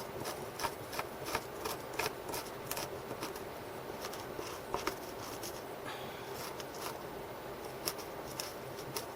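Knife blade shaving thin curls off a stick of wood: a run of short scraping strokes, about three a second, that thins out after about three seconds into a few scattered strokes and clicks.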